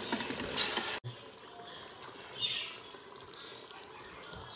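A spoon stirring wet yogurt-and-masala goat trotters in a steel Instant Pot inner pot, with sizzling. It cuts off abruptly about a second in, leaving faint room tone with one brief faint chirp.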